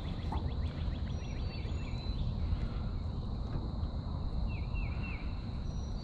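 Birds calling: a fast run of short chirps in the first two seconds, then three short down-slurred notes about four and a half seconds in, over a steady low rumble.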